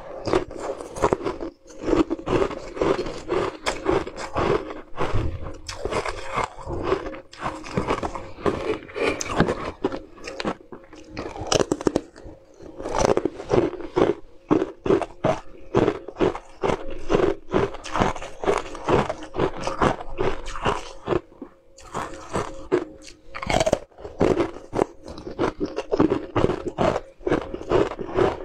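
Close-up biting and chewing of crunchy green ice sticks: a rapid run of sharp crunches, easing off briefly twice.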